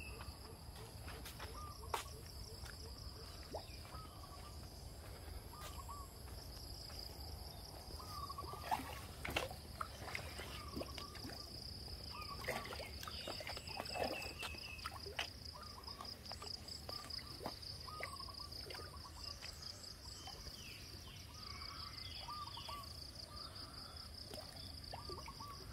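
Rural outdoor ambience: an insect keeps up a steady high trill throughout, while birds give short chirping calls at intervals. A few sharp clicks are scattered through it.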